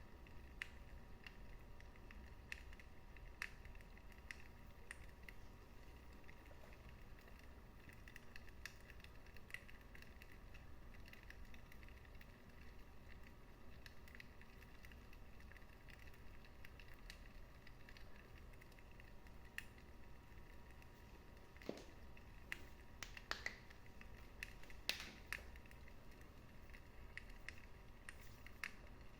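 Wood fire in a fireplace crackling softly: scattered sharp pops over a low steady hiss, with a cluster of louder pops about three quarters of the way through.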